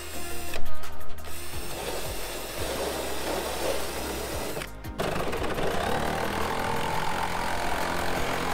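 A cordless drill boring a starter hole through a car's sheet-metal hood, then, after a brief stop about five seconds in, a jigsaw cutting the hood panel with a steady buzz, over background music.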